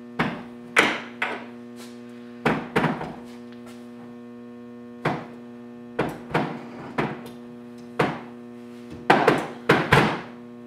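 A heavy metal door closer being handled and set down on a counter, making about a dozen irregular knocks and thunks, over a steady electrical hum.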